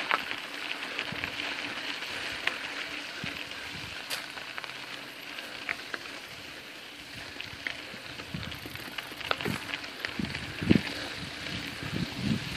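Bicycle tyres rolling over a dirt trail, a steady crunching hiss with scattered ticks and rattles from the bikes. Low thumps and knocks come in over the last few seconds.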